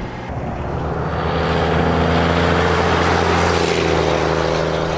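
Truck engine pulling under heavy towing load: a steady, even drone over road noise.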